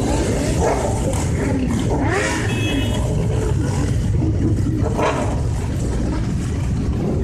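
A group of motorcycles, sport bikes and V-twin cruisers, riding slowly past in a column, their engines running at low revs in a steady, loud drone. A couple of bikes are revved, around two seconds in and again around five seconds in.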